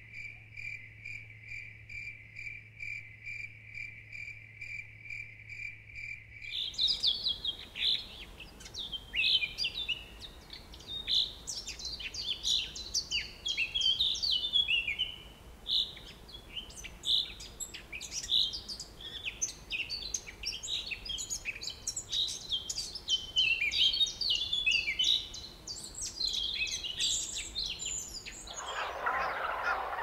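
An insect's steady pulsed trill, about three pulses a second, cut off about six seconds in by many birds chirping with quick, falling notes. Near the end a harsher, noisier call takes over.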